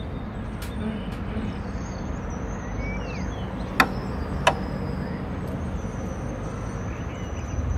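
Outdoor city ambience: a steady low rumble of distant road traffic, with two sharp clicks about four seconds in, less than a second apart.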